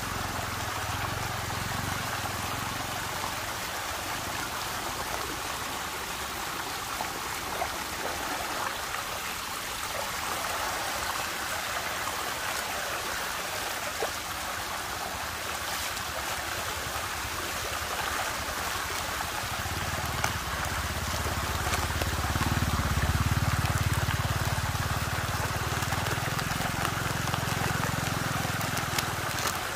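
Steady rushing of water circulating in a whirlpool vortex. A low rumble joins about twenty seconds in and swells for a few seconds.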